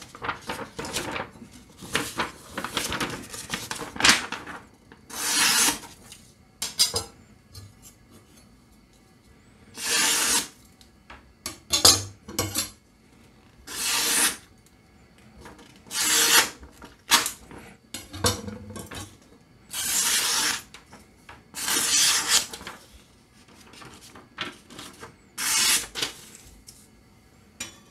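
Sharpened Japanese nakiri knife blades slicing through a sheet of paper in a sharpness test. About ten short hissing cuts come roughly every two seconds, with paper rustling between them.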